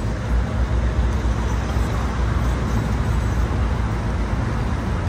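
Heavy diesel engines running with a steady low rumble: an excavator working its boom beside an idling tipper lorry.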